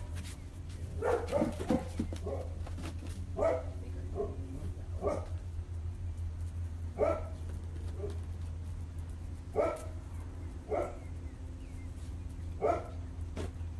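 A dog barking, short single barks every second or two.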